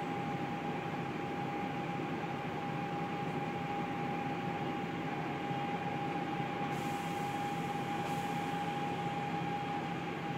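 Volvo B7TL double-decker bus idling, heard from inside the lower deck: a steady, noisy diesel idle with its Voith three-speed automatic transmission. A constant high whine sits over the lower engine hum. A faint hiss comes in about seven seconds in.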